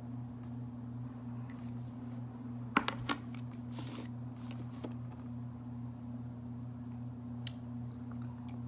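A steady low electrical hum, with a quick cluster of sharp clicks about three seconds in and a few faint ticks from handling things on the table.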